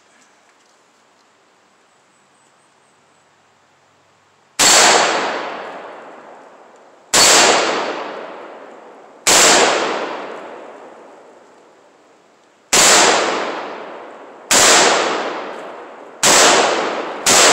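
Riley Defense RAK47C, an AK-47 in 7.62×39, fired as single shots. The first shot comes about four and a half seconds in, then seven in all, irregularly spaced one to three and a half seconds apart, each followed by a long echo fading away. The lacquer-coated steel-cased rounds fire and cycle with no malfunction.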